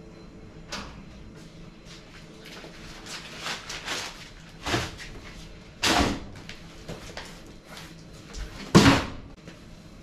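Cardboard boxes being carried, handled and put down on a concrete floor: rustling, footsteps and a string of thumps, the two loudest about six seconds in and near the end.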